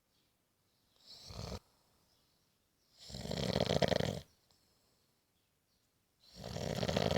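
A person snoring: a short, fainter breath about a second in, then two long, loud snores about three seconds apart.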